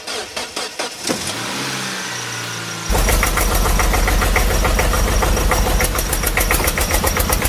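Tractor engine sound starting up: uneven clicking and cranking, then catching about three seconds in and running with a rapid, heavy knocking beat.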